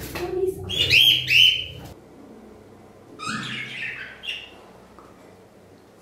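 Pet birds calling: two loud rising-and-falling calls about a second in, then a run of softer, quicker chirps between about three and four and a half seconds.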